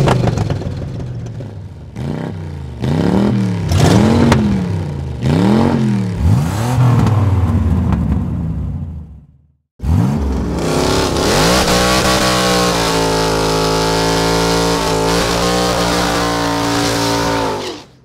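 Car engine revved in quick blips, its pitch rising and falling about once a second, fading out partway through. After a short break it climbs and holds steady at high revs, then cuts off near the end.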